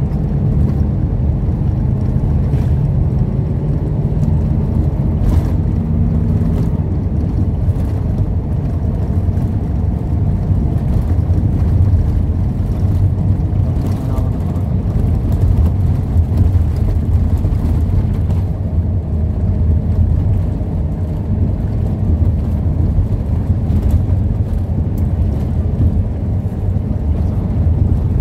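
Steady low rumble of a moving road vehicle heard from inside its cabin: engine and road noise while driving along.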